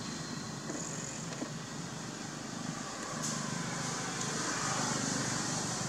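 Steady rumble of passing road traffic, growing louder about three seconds in, with a steady high hiss above it.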